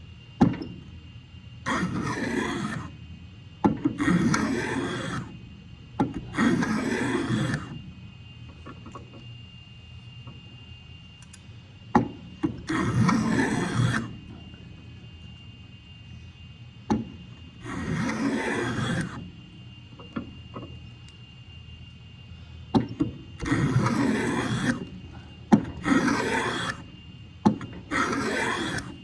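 Hand plane being pushed along a board in separate strokes: about eight rasping passes of a second or so each, most starting with a sharp tap, with pauses of uneven length between them.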